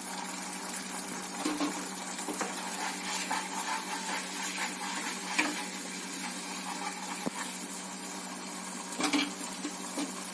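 Gravy sizzling in a kadai while a spoon stirs it, with a few short scrapes and taps of the spoon against the pan, the loudest near the end.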